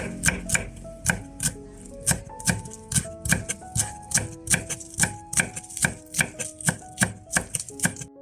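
Knife chopping food on a cutting board in a steady rhythm, about three strokes a second, with background music underneath.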